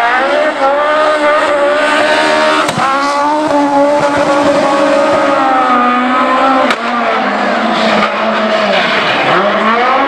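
Fiat 131 rally car's four-cylinder engine revving hard, its pitch climbing and dropping as the driver lifts, changes gear and accelerates away. Tyres squeal as it slides through a hairpin, and there are two sharp cracks about three and seven seconds in.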